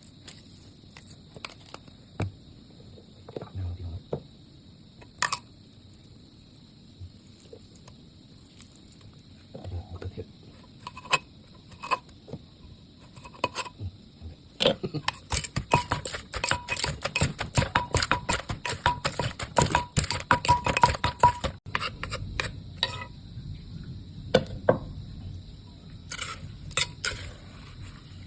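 Pestle pounding in a mortar for a pounded long-bean salad, with clinking of utensils. Scattered knocks at first, then a quick, dense run of strokes in the middle, then scattered knocks again near the end.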